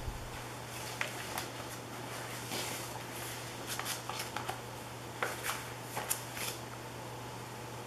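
Casablanca Ventura II ceiling fan with an XLP-2000 stack motor running, giving a steady low hum under an even hiss. A soft thump comes right at the start, and a scatter of light clicks and rustles follows through the middle seconds.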